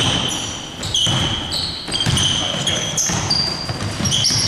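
Basketball bouncing on the court during live play, with a string of short, high-pitched sneaker squeaks from players cutting and stopping.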